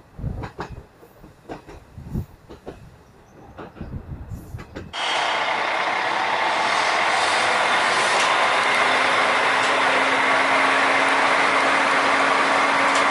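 Diesel railcar heard from an open carriage window. First come a few seconds of scattered knocks and clacks from the running gear. Then, after a sudden jump about five seconds in, loud even wheel and running noise, with a steady engine hum joining a few seconds later.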